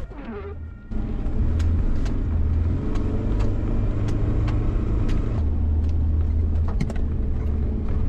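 1994 Ford Explorer's 4.0-litre V6 running, a steady low rumble that gets louder about a second in, with scattered short knocks.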